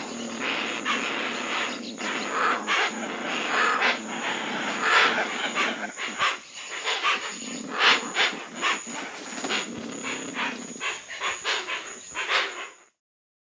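Hoatzin calling: a rapid, irregular run of harsh, hissing rasps and grunts that stops abruptly about a second before the end.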